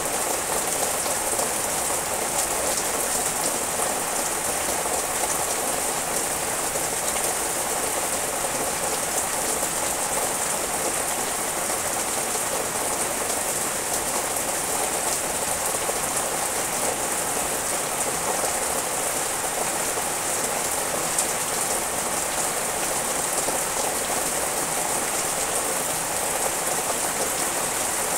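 Steady rain falling on the leaves of garden trees and shrubs, an even hiss that holds without a break.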